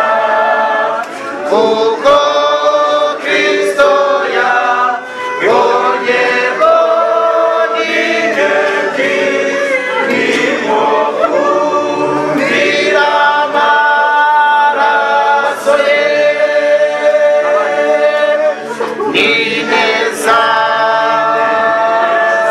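A group of men and women singing a hymn together, unaccompanied, in held notes that change pitch every second or so.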